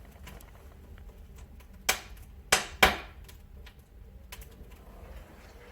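Three sharp knocks, the last two close together, over a low steady hum.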